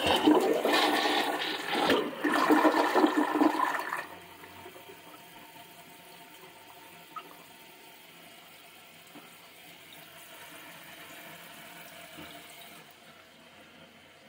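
American Standard Champion 4 toilet, a gravity-fed 1.6-gallon-per-flush model with a 4-inch flush valve, flushing: a loud rush of water down the bowl for about four seconds, with a brief dip about two seconds in. Then a much quieter steady hiss of the tank refilling, which eases near the end.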